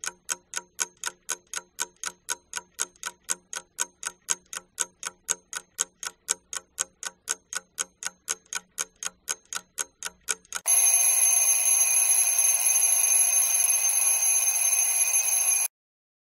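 Alarm clock sound effect: even ticking, about four ticks a second, for about ten seconds, then the bell rings steadily for about five seconds and cuts off, marking the end of the riddle's thinking time.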